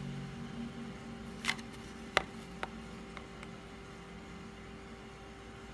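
A few sharp light clicks and taps from a small glass shot glass being handled over a paper plate, the clearest about a second and a half and two seconds in, over a steady low hum.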